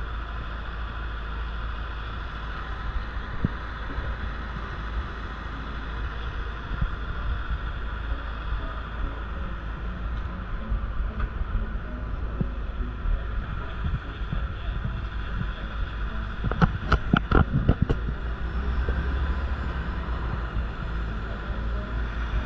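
City street ambience: a steady traffic hum with a low rumble. About 17 seconds in comes a quick run of sharp knocks or clacks.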